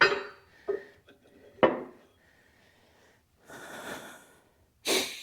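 Three sharp metallic knocks with a short ring in the first two seconds, as heavy steel parts of an excavator thumb are handled and fitted, then two hissing, effortful breaths.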